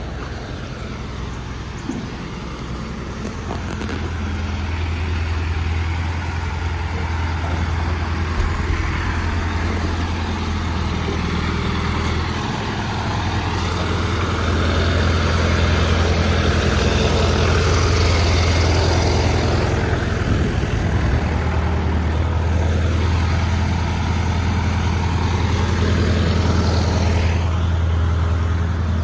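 Hydra mobile crane's diesel engine running steadily, with a higher whine that dips and climbs again twice.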